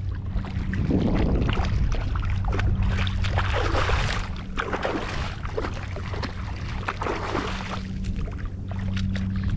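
Water splashing as a hooked fish thrashes at the surface beside a fishing kayak, loudest in the middle, over a steady low hum.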